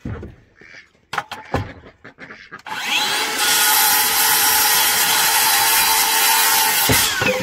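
Circular saw cutting through a 2x4 stud: the blade spins up about a third of the way in, runs through the wood for about four seconds, then winds down near the end. A couple of knocks from the board being handled come before the cut.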